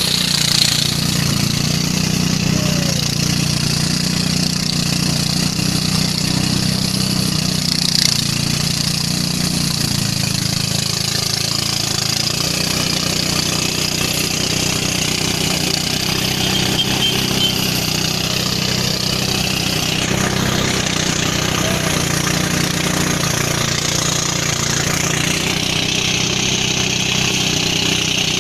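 Engine-driven rice threshing machine running steadily: a constant engine drone under an even high rushing noise as rice sheaves are fed into the threshing drum.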